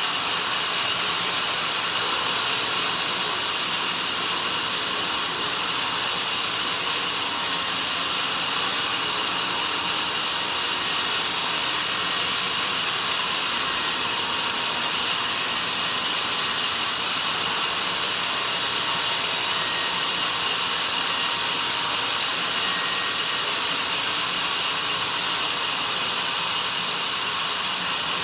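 Sawmill band saw cutting through a log, a steady, unbroken hiss of the blade in the wood.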